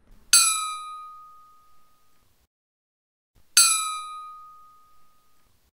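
Xiangzhan, a small Nanguan gong, struck twice about three seconds apart. Each strike rings with a clear high tone that slides in pitch as it fades over about two seconds. The slide marks a well-made, correctly played xiangzhan and may come from how its metal was hammered.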